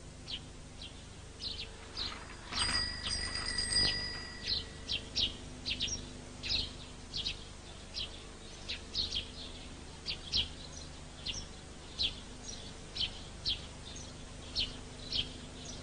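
Birds chirping: short, high chirps repeated throughout, roughly one or two a second, over a faint steady background. Near three seconds in, a brief louder patch carries a steady high tone.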